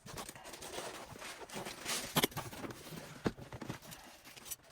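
Contents of a car-radio box being handled: soft rustling of packaging with a few small knocks and clicks, the clearest about two seconds in and again a second later.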